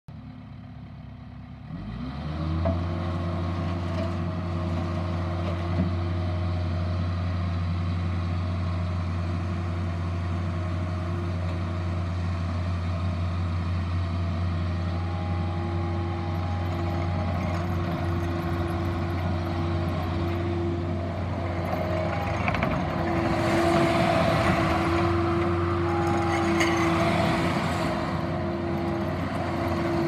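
Takeuchi TL8 compact track loader's diesel engine revving up quickly about two seconds in and then running steadily at high speed. Near the end, the rattle of the tracks and the noise of the hydraulics rise over it as the machine drives and turns.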